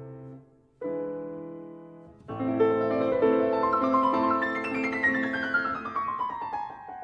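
Solo piano music: a chord fades out, a new chord sounds just under a second in and dies away, then from about two seconds in a flowing passage with a descending run of notes.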